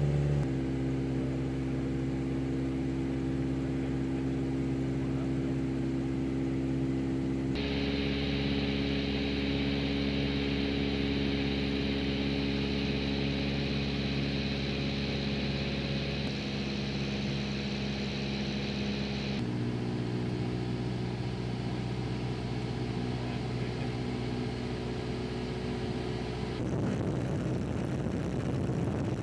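Helicopter engine and rotor drone: a steady hum whose pitch and tone change abruptly a few times.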